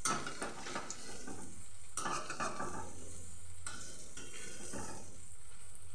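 Palm-fruit fritters sizzling as they deep-fry in hot oil in a metal wok, with a steady hiss. A spatula stirs through the oil in three short bursts, near the start, about two seconds in and about four seconds in, turning and lifting the fritters.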